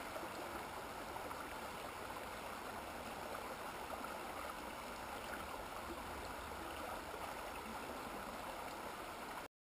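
Shallow river running over rocks: a steady, faint babbling rush of water that cuts off suddenly near the end.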